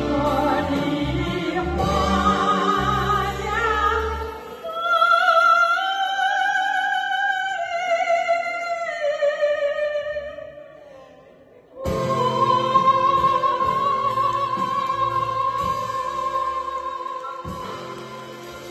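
A woman and a man singing a duet with a live band of drums, guitars and backing singers. About five seconds in the band drops out under a single held, wavering sung line that fades almost to silence, then the band comes back in about twelve seconds in under a long held note.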